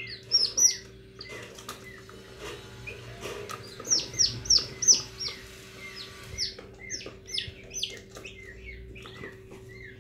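Young turkey poults and a duckling peeping: many quick, high, downward-sliding peeps, busiest and loudest around four to five seconds in, over a steady low hum.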